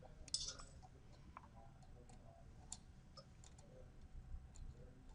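Faint, irregular metal clicks of a 3 mm Allen key turning a set screw to lock a valve positioner's magnetic array in its bushing. The loudest click comes about a third of a second in.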